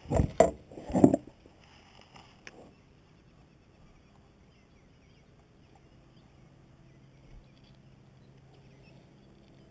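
Close handling noise in a kayak: a few sharp knocks and rustles in the first second or so, then quiet with a faint steady low hum.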